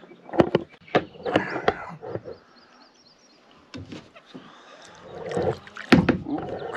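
Paddling a kayak: a series of sharp knocks and clunks from the paddle and the kayak's hull, with soft water sounds in between.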